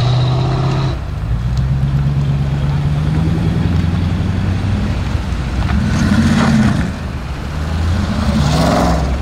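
V8 muscle-car engines burbling at low speed as the cars creep past in a staging line, the deep note steady with small rises in pitch as they pull forward.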